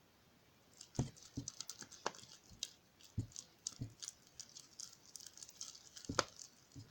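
Plastic spoon stirring clear glue and slime activator in a bowl: a quick, uneven patter of small sticky clicks, with a few louder knocks of the spoon against the bowl.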